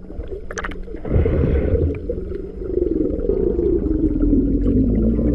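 A splash into water about a second in, then a loud, deep underwater rumble of churning water and bubbles that slowly falls in pitch. Music plays faintly underneath.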